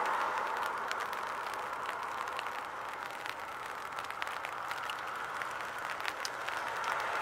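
Steady hiss of passing road traffic, easing off in the middle and swelling again near the end, with faint scattered ticks over it.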